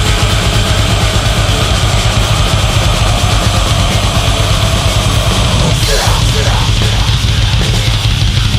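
Heavy hardcore (beatdown) music: distorted guitars, bass and a drum kit playing loud and dense.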